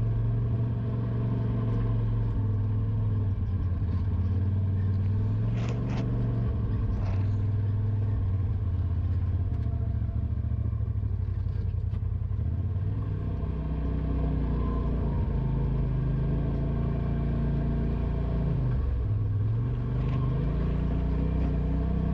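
Polaris RZR Pro XP side-by-side's engine running as it drives along a trail, its note shifting with the throttle, dropping briefly near the end and picking back up. A few short knocks come about six and seven seconds in.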